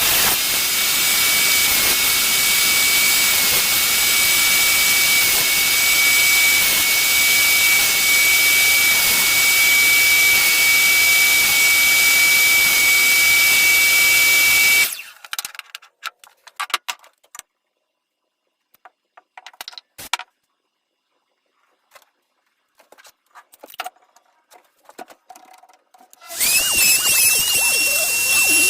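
An electric power tool cutting wood, running steadily with a high whine for about fifteen seconds and then stopping. Scattered light taps and knocks of wood being handled follow, and the tool starts again near the end at a slightly higher pitch.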